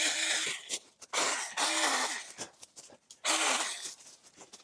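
Stihl battery mini pruning chainsaw run in short bursts, about four in a few seconds, each under a second. The motor pitch sags as each burst ends.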